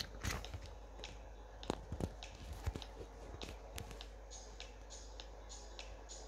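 Pages of a hardback comic book being turned and handled: a paper swish right at the start, then a few light clicks and taps, and in the second half soft hissy sounds repeating a few times a second.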